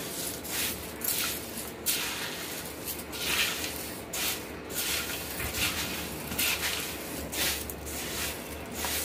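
Spatula stirring crisp roasted poha flakes, peanuts, coconut slices and curry leaves in a steel bowl: a dry rustling and scraping that comes in repeated strokes, about one a second.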